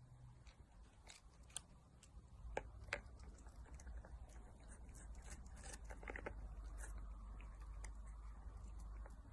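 Near silence: a faint low room hum with a few soft, scattered clicks.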